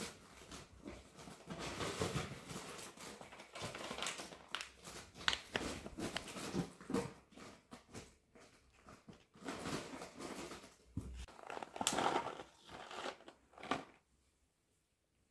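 Paper and cardboard packaging rustling and crinkling in irregular crackles: a dog rummaging in a cardboard box and a kraft-paper treat pouch being handled. The rustling stops about fourteen seconds in.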